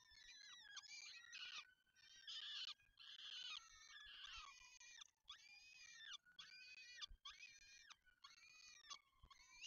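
Peregrine falcon chicks begging with repeated high-pitched calls while an adult feeds them. The calls come in runs of about half a second to a second with short breaks between.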